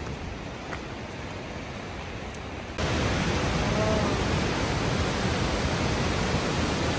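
Soft outdoor hiss, then about three seconds in an abrupt switch to the louder, steady rushing of a waterfall plunging into a pool.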